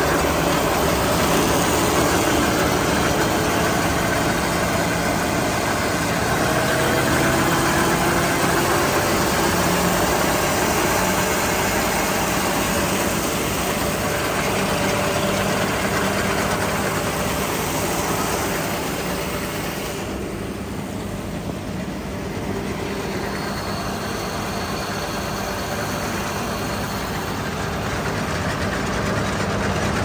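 John Deere 450M round baler running empty off a tractor's PTO, its pickup, rotor and drive turning steadily over the tractor engine's steady running.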